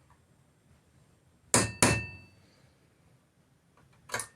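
Two quick hammer blows on a metal punch, each with a short metallic ring, followed near the end by a lighter tap.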